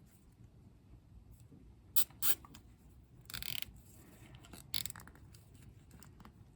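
Nylon zip tie being fitted around a fuel hose over the filter nipple: a few sharp clicks and a short ratcheting zip as the tie is pulled through and tightened.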